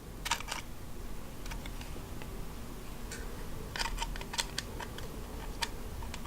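Laptop hard drive being handled and pushed into place, giving a string of sharp small clicks and scrapes of hard plastic and metal parts, some close together.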